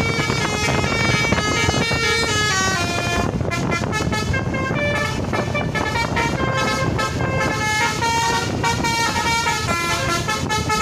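Bus telolet basuri horns playing fast melodic runs, notes stepping up and down several times a second and at times overlapping as two horns sound together, over a steady engine and road rumble.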